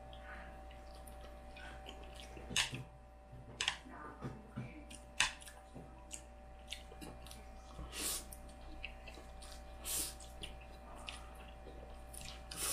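Close-up eating sounds: chewing with wet mouth clicks and several short slurps of black-bean-sauce noodles, coming irregularly every second or two.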